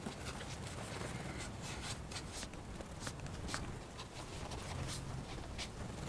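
Light, irregular ticks and small scratches over a steady low room hum: small contact sounds on a tabletop, from a brush pen on paper or a sparrow hopping and pecking on the desk.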